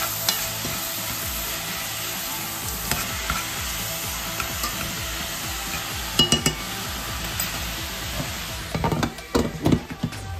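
Food sizzling steadily in a pot on the stove while it is stirred, with a utensil knocking against the pot now and then: a quick run of knocks about six seconds in and a busier patch near the end.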